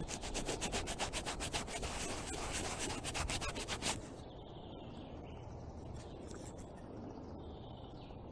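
Soil-crusted oval aluminium identity disc (a WWII-style dog tag) rubbed briskly against trouser fabric to clean it: fast scrubbing strokes for about four seconds, then it stops and only a few faint handling ticks remain.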